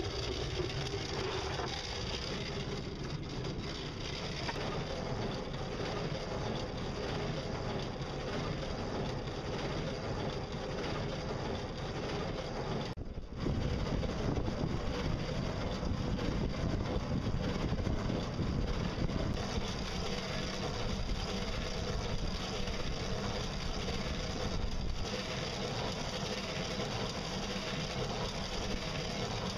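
Pedal- and solar-powered boat under way, its drive running with a steady mechanical drone along with water noise. It cuts out for an instant about a third of the way in and is a little louder afterwards.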